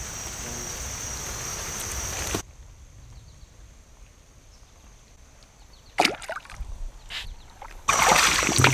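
Flowing creek water, with a couple of brief sharp sounds about six seconds in and a sudden louder rush of water near the end.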